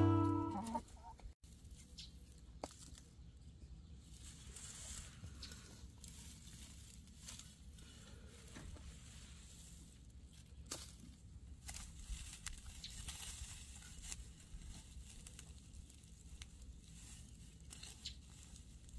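Acoustic guitar music fades out in the first second. Then faint backyard hens clucking, with a few scattered soft clicks.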